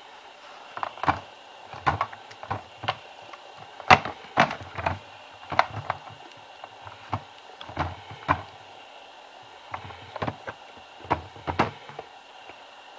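Irregular clacks and knocks, about twenty in some eleven seconds, from handling an Iris Ohyama SBD-74 cordless stick vacuum.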